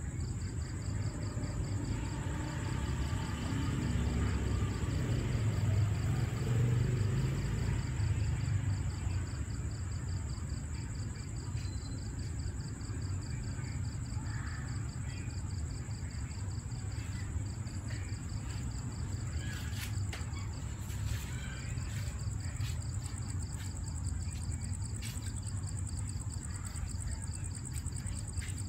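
Night insects, crickets among them, calling: one steady high trill and a second call pulsing rapidly, over a low rumble, with a few faint clicks in the second half.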